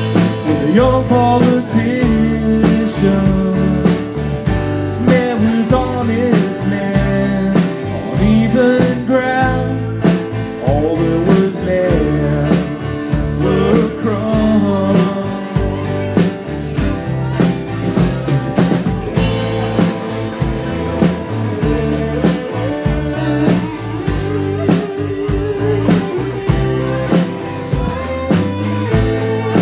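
Live band playing: acoustic and electric guitars over a drum kit keeping a steady beat, with a man singing.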